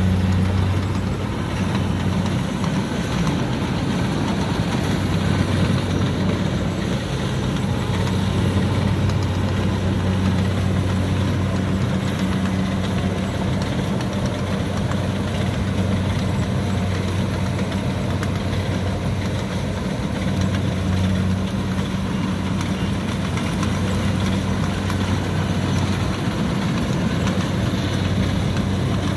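Kubota DC70 combine harvester's diesel engine running steadily with a low, even hum.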